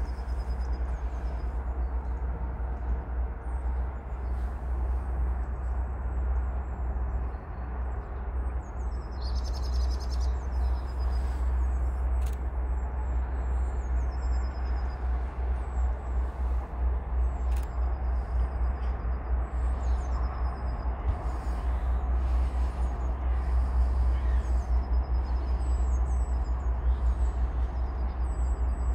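Small birds chirping again and again over a steady low rumble.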